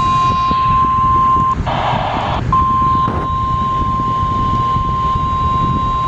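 NOAA Weather Radio warning alarm tone: one steady high-pitched tone, the signal that a warning is being broadcast. It breaks off about one and a half seconds in for a short burst of hiss, then resumes, over a steady low rumble of radio noise.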